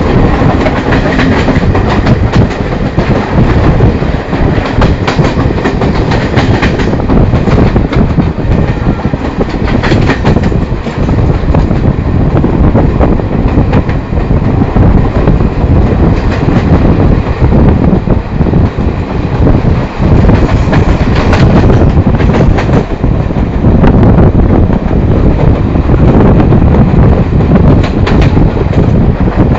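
Express passenger train running at speed: a loud, steady rumble of the coaches with the wheels clattering over rail joints and points.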